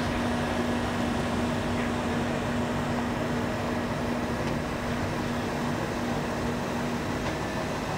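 Steady drone of running machinery with a constant low hum.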